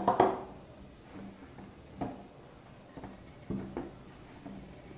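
Hands mixing and kneading crumbly dough with flour in a glass bowl, with a few soft knocks of hand and dough against the glass.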